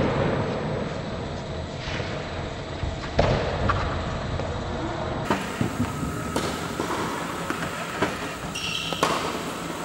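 Tennis balls struck by rackets in a volley rally, with bounces on the hard court: sharp pops about every one to two seconds, ringing in a large indoor court hall.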